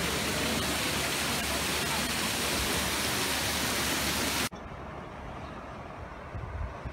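Fountain water jets splashing into a stone basin, a steady loud hiss that cuts off suddenly about four and a half seconds in. After the cut comes a much quieter low rumble.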